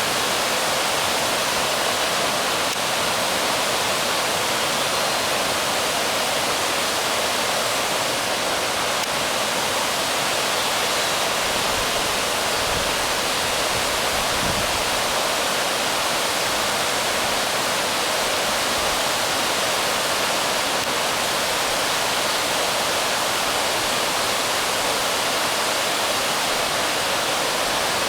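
Waterfall: a steady, unbroken rush of falling water, with a few faint low bumps about halfway through.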